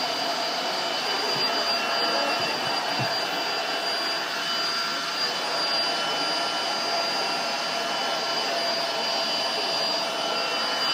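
Vacuum cleaner running steadily, a constant rushing noise with a high motor whine, and a couple of faint knocks about two and a half to three seconds in.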